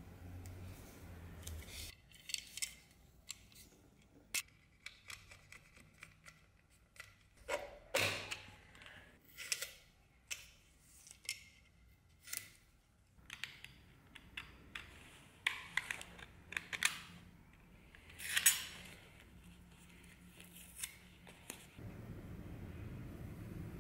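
Blue plastic tape being pulled off, cut and wrapped around a metal dagger scabbard: a string of short scratchy rips and snips, irregular in spacing and strength. Near the end it gives way to a steady low background noise.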